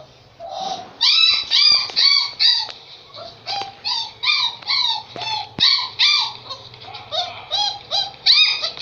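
A dog giving a rapid series of short, high-pitched whines, each rising then falling in pitch, about three a second. They start about a second in and keep going without a break.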